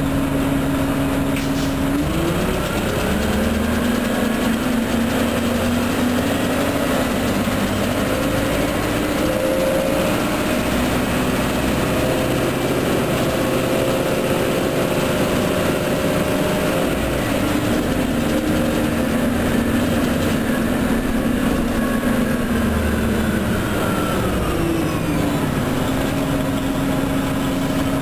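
Orion transit bus engine idling, then pulling away: its note climbs and changes in steps, with a high whine rising and falling over it. About 25 seconds in it drops back to idle.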